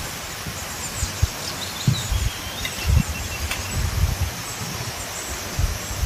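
Outdoor ambience: wind buffeting the microphone in irregular low gusts over a steady hiss, with a few faint high bird chirps about two seconds in.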